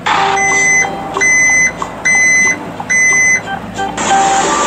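Four loud electronic beeps, about one every 0.8 s, over the low steady hum of an excavator's diesel engine; about four seconds in, the beeping stops and the engine noise comes up loud and even.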